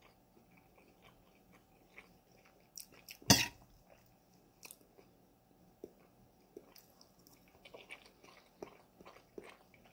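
Quiet chewing of chickpeas and rice, with small clicks and scrapes of a metal spoon against a metal pot. One louder short burst comes about three seconds in.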